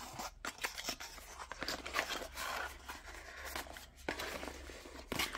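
Rustling, crinkling and small plastic clicks as the dash cam's packaged parts and box are handled on a table.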